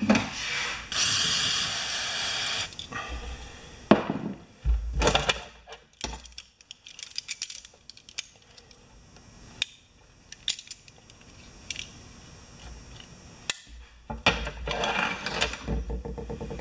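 Aerosol can of carburettor cleaner sprayed in one hiss of about two seconds near the start. Then small metallic clicks, taps and clatter of tools and parts being handled on a workbench, with a louder knock about four seconds in.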